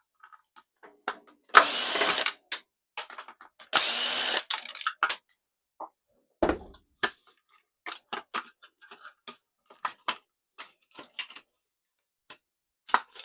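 Handheld power driver running in two short bursts of about a second each, backing screws out of a microwave's front panel, followed by light clicks and rattles of screws and metal parts being handled.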